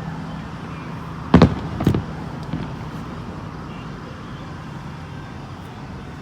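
Two aerial firework shells bursting, about half a second apart, over a steady background rumble.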